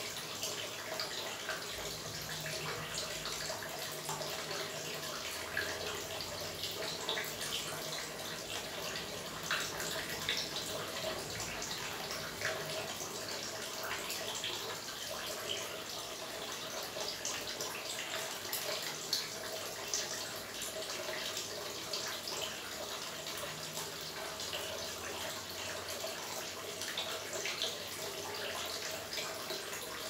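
Water trickling and splashing steadily into a small pool, full of quick drips and little splashes, over a faint steady hum.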